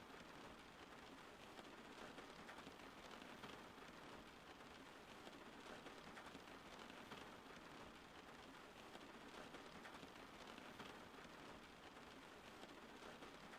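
Steady rain falling, heard faintly as an even hiss sprinkled with small drop ticks.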